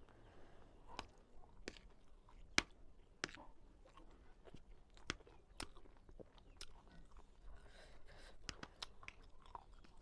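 Close-miked chewing of a mouthful of noodles, with crunching and a scatter of sharp, irregular mouth clicks; one click about two and a half seconds in is much louder than the rest.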